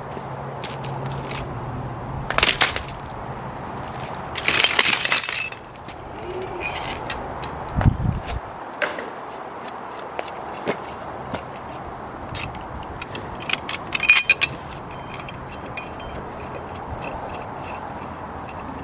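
Steel gantry-crane hardware being handled: metal parts clinking and rattling with scattered knocks and a few ringing metallic clinks, and a low thud about eight seconds in.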